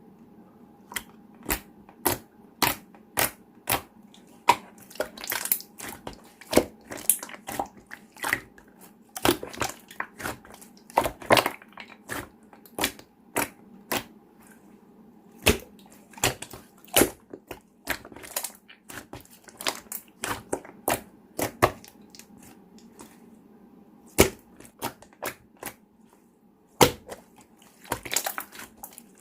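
Clear slime being pressed and stretched by hand, giving sharp, irregular clicks and pops, roughly one or two a second, with a lull a few seconds before the end. A faint steady hum runs underneath.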